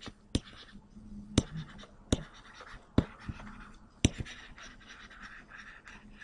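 Stylus writing on a tablet screen: about five sharp taps as the pen touches down for each stroke, with faint scratching between them.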